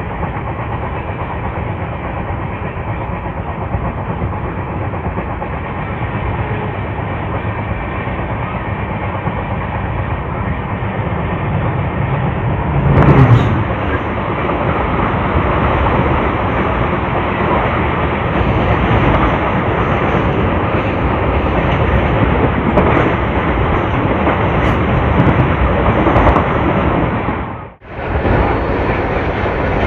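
Train running at speed heard from an open coach door: steady wheel and rail noise with clickety-clack over the joints. A goods train hauled by a WDG4D diesel locomotive rushes past on the adjacent track, with a loud swell about halfway through as the locomotive goes by. Near the end a passenger train sweeps past.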